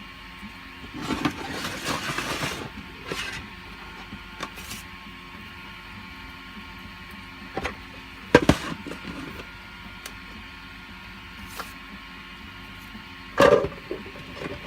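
Hands working 3D-printed plastic parts: a rustling scrape in the first few seconds, a sharp click about eight seconds in, and a loud knock near the end. A steady machine hum runs underneath.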